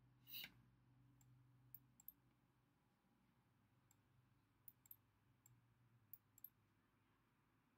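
Faint computer mouse clicks, single and in quick pairs, over a low steady hum. A slightly longer, louder click comes about half a second in.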